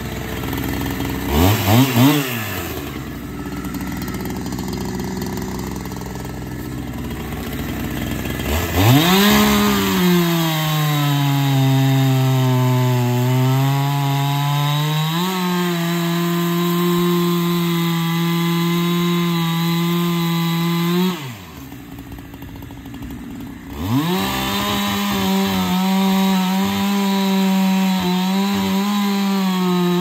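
Gas chainsaw bucking a red oak log. It idles with a quick blip about two seconds in, then runs at full throttle from about nine seconds, the pitch sagging as the chain bites into the wood. It drops back to idle around twenty-one seconds and opens up again for another cut near the end.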